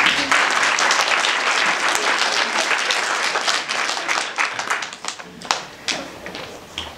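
Audience applauding. The clapping is dense at first and thins out to a few scattered claps about five seconds in.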